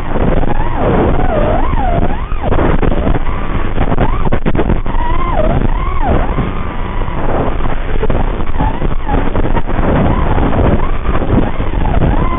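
Racing quadcopter's motors spinning Gemfan Hurricane propellers, heard from on board the drone: a loud whine that swoops up and down again and again with the throttle through the turns, over rough wind noise. There are a few sharp crackles about four seconds in.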